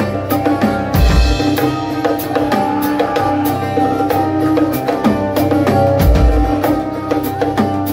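Live rock band playing: guitars over a drum kit keeping a steady beat, with no singing.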